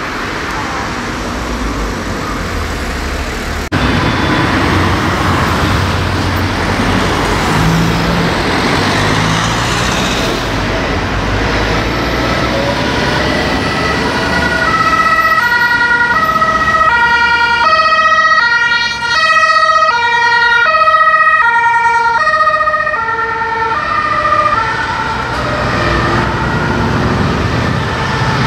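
Two-tone siren (German Martinshorn) of an emergency doctor's car on call, with high and low notes alternating in steady steps. It grows louder as the vehicle approaches and passes, then fades as it drives off. Before it comes the sound of traffic and tyres on the road.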